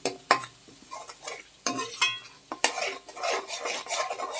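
Metal spatula stirring and scraping coconut and ginger-garlic paste frying in ghee and oil in a steel kadai, the paste sizzling, with irregular scrapes and clinks of the spatula against the pan.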